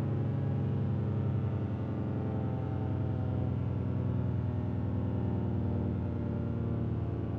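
Four-tone siren sounding a steady multi-tone chord, its pitch drifting slowly lower.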